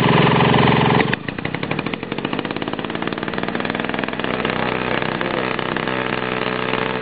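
RC model airplane engine running: loud for about the first second, then dropping suddenly to a steady, quieter run near idle.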